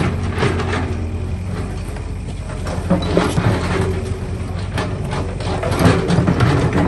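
Heavy diesel engine of a tracked excavator running steadily with a low hum. Occasional sharp knocks of rock being set by hand sound over it.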